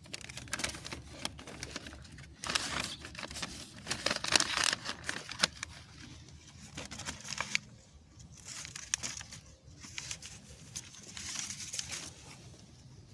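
Paper bag crinkling and rustling in irregular bursts as it is opened out and cut down the sides, with sharp little clicks among the rustle.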